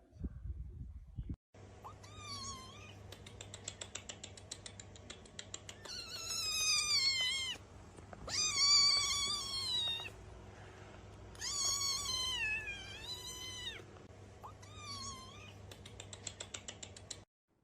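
A cat meowing repeatedly in about six long, drawn-out, wavering meows, some yowl-like, with a fast rattling patter between the first few.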